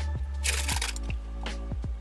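Background music with held chords and deep drum hits, and a short swishing burst about half a second in.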